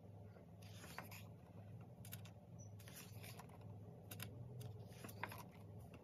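Faint rustling and rubbing of glossy magazine pages being handled and turned by hand, in short scattered bursts, over a steady low hum.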